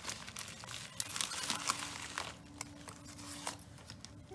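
Plastic courier mailer crinkling and rustling as it is opened and handled and a cardboard box is slid out of it. The crinkling is dense for about two seconds, then thins to a few scattered crackles.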